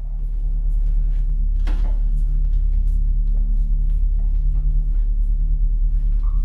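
A deep, steady rumbling drone of suspense-film underscore, with faint scattered clicks above it.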